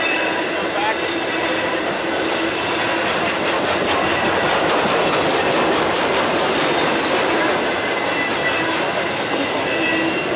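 Intermodal freight train's flatcars loaded with truck trailers rolling past at close range: a steady rumble of steel wheels on rail, with thin, faint wheel squeal tones. There is a stretch of rapid clicking from the wheels over the rails in the middle.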